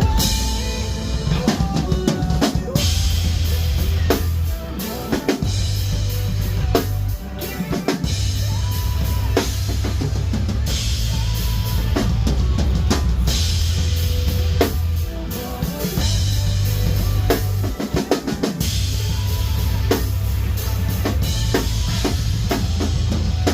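Rock drum kit played hard along to a heavy nu-metal backing track: kick drum, snare and cymbals over a thick, sustained low bass, with a couple of short breaks where the low end drops out.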